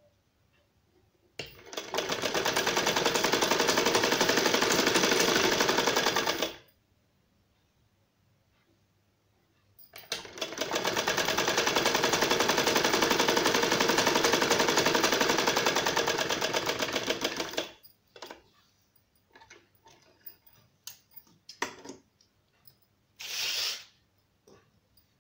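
A black-and-gold vintage sewing machine stitching a fabric strip in two runs of fast, even needle strokes, each several seconds long, building up at the start and stopping sharply. Light clicks and a brief rustle follow near the end as the fabric is handled.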